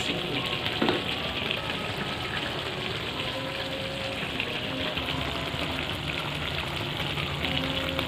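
Steady hiss of a pan of beef rendang reheating on the stove, with a single knock about a second in.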